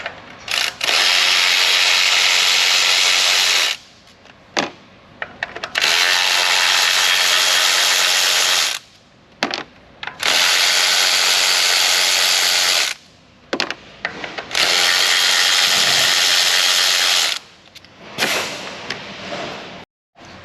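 Power ratchet running in four bursts of about three seconds each, with short pauses and small clicks between them: backing out the four 10mm bolts that hold the coil packs.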